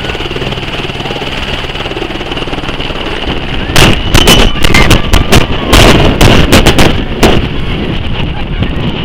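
AS350 Écureuil turboshaft helicopter lifting off, its turbine and rotor running with a steady hum and a high whine. From about four seconds in, for some three seconds, loud irregular blasts of rotor downwash buffet the microphone as the helicopter climbs over it.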